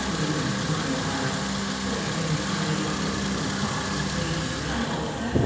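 Holden Commodore 3.6-litre V6 engine idling steadily. A brief thump comes right at the end.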